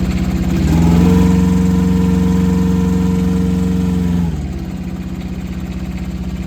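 Rippa R10 mini excavator's diesel engine running. Under a second in it revs up, holds the higher speed for about three and a half seconds, then drops back to idle.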